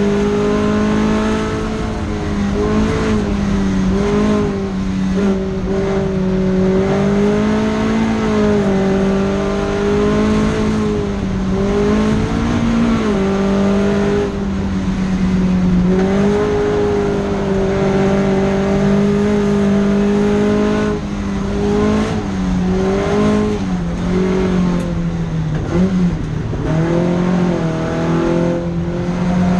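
Datsun Fairlady 2000 (SR311) four-cylinder engine running hard on track. Its pitch holds for stretches, then dips and climbs again several times, the way it does with lifts off the throttle and gear changes.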